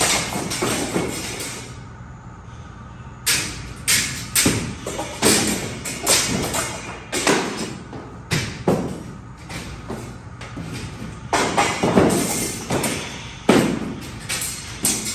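Repeated thuds and knocks of old ceiling tiles being worked loose from a metal suspended-ceiling grid and dropping, echoing in a large hall. There is a short quieter gap about two seconds in.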